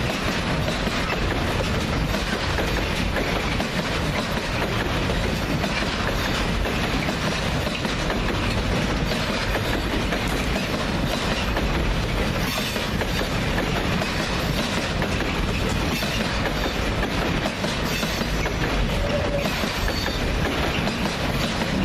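Freight train rolling past, the steady noise of its wagons' wheels running on the rails.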